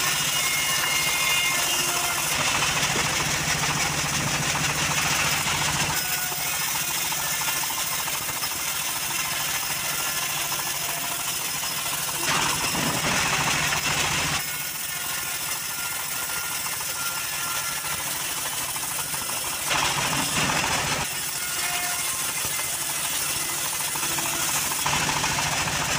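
Homemade band sawmill running with a steady engine hum, its blade cutting lengthwise through timber as it is fed through; the cutting noise swells twice.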